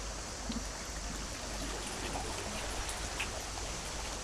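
Steady shore ambience of sea water washing against the rocks, an even continuous hiss with a few faint clicks.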